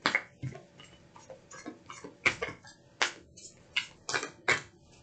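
A deck of oracle cards being shuffled by hand: a run of irregular sharp snaps and slaps of the cards, about half a dozen of them standing out.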